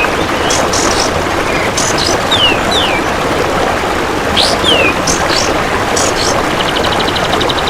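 Kapas tembak bird calling: several short whistled notes that slide downward, mixed with sharp high chirps, over a steady rushing hiss. Near the end a fast, even ticking trill from a belalang emas (golden grasshopper) starts up.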